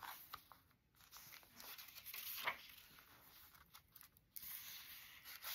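Faint rustling and soft clicks of paper and card pages being turned in a handmade paper-bag journal, with one sharper tap about two and a half seconds in.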